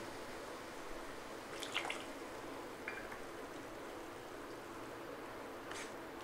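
Silicone spatula stirring watery semolina, peas and vegetables in a wok: faint wet, sloshing stirring with a few brief sharper scrapes.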